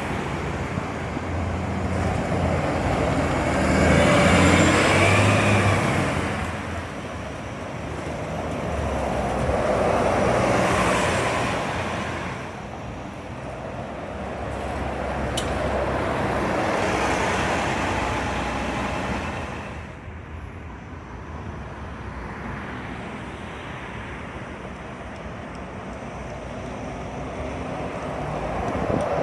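Toronto Transit Commission city buses driving past in street traffic, engines and tyres swelling up and fading away several times as each vehicle passes.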